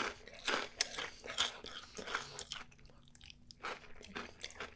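Close-up chewing of cheese-sauce-covered Cheetos nachos: crisp crunches and wet mouth sounds, denser in the first two seconds and thinning out after.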